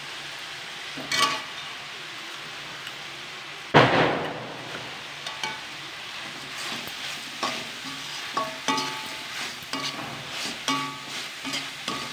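Onions and tomatoes sizzling steadily in hot oil in an aluminium kadai, while a steel slotted spoon stirs them, knocking and scraping against the pan in short strokes in the second half. A loud clatter stands out about four seconds in.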